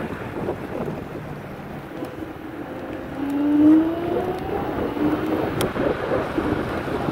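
Wind rushing over the microphone of a moving ride, with a mechanical hum rising slowly in pitch about two seconds in, loudest near the middle, then fading. There is a single sharp click near the end.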